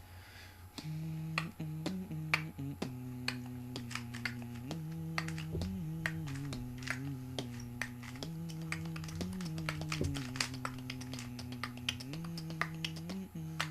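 Rubik's Cube layers clicking as they are twisted, a steady run of sharp clicks, over a low held tune that moves in steps from note to note.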